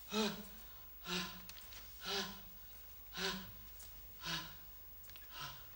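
A man's short cries of pain, about one a second, six in all, each a brief pitched breathy sound.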